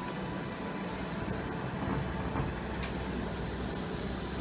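Steady low background hum and rumble, with no clear single event.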